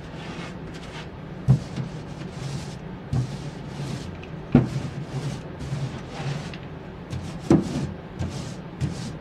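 Small paintbrush scrubbing primer onto a wooden cabinet's panel in quick, repeated swishing strokes, with four sharp knocks as the brush or hand bumps the wood.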